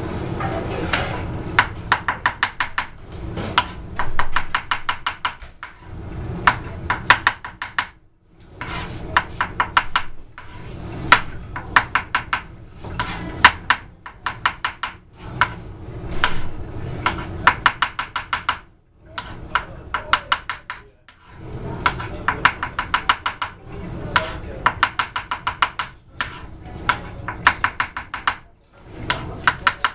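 Chef's knife slicing mushrooms on a plastic cutting board: quick runs of knife strikes against the board, several a second, broken by short pauses, over a low steady background rumble.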